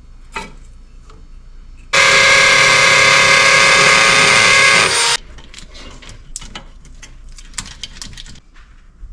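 A power tool runs at one steady speed for about three seconds, starting and stopping abruptly, followed by a series of light clicks and knocks.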